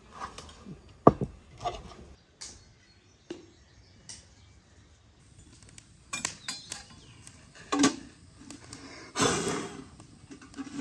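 Glass jars clinking and knocking as they are set down, the loudest about a second in. Later, metal clanking and a short scrape as a chimney pipe is fitted onto a wood-fired samovar.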